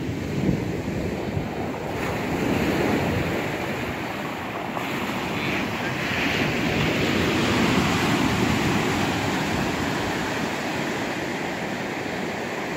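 Ocean surf breaking and washing up a sandy beach, a steady rushing that swells and eases with the waves, with wind buffeting the microphone.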